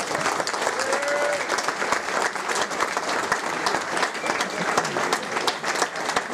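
Audience applauding, with many people clapping at once.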